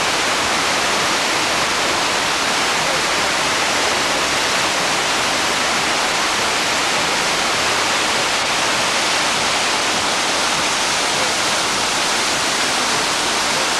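Steady rushing of water pouring over a weir, an even roar at one level that cuts off abruptly at the end.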